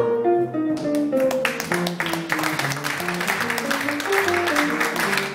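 Archtop jazz guitar playing a single-note line over upright bass, with audience applause starting about a second in and continuing over the music.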